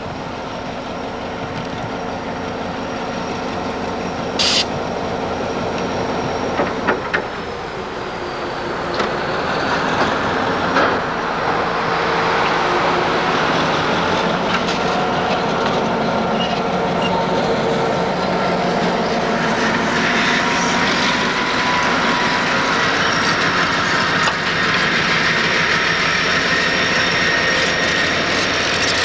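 A railroad snowplow pushed by diesel locomotives comes up and passes close by, clearing snow from the track. The locomotive engines run steadily under the rush of plowed snow, growing louder over the first dozen seconds and then holding. A few sharp clicks and knocks come through in the first several seconds.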